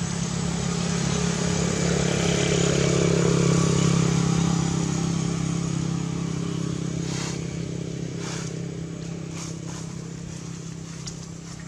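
A motor vehicle passing on a nearby road: its engine drone swells to a peak a few seconds in, then fades away. A few light crackles follow in the second half.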